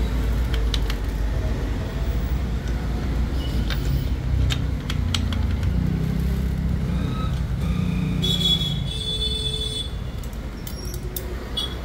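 Steady low rumble of motor-vehicle traffic, with a brief hiss about eight seconds in. Scattered light metallic clicks come from the KTM Duke's clutch plates being handled in the open clutch basket.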